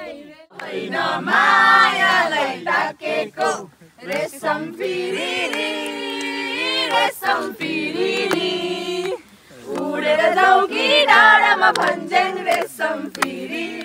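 A group of people singing together without instruments, loudly and in chorus, in phrases with short breaks about four and nine seconds in.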